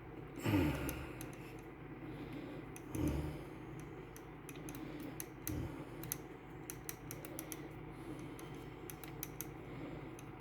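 Alcohol-soaked cotton swab scrubbing a cassette deck's tape head: a run of small scratchy clicks, with three dull bumps of handling against the deck.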